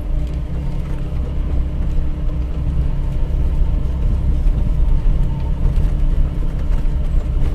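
Low, steady rumble of vehicle engines in traffic, with a constant droning tone.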